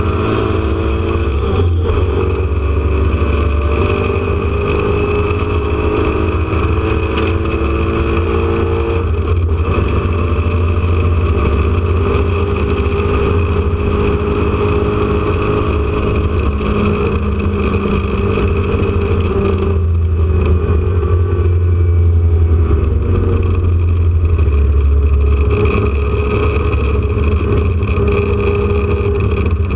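Air-cooled flat-six of a 1979 Porsche 911 RSR race car running hard, heard from inside the car. Its pitch climbs and falls through gear changes, with short drops about nine and twenty seconds in.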